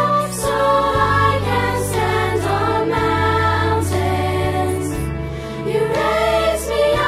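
Children's choir singing, over an accompaniment of long held low notes that change every few seconds.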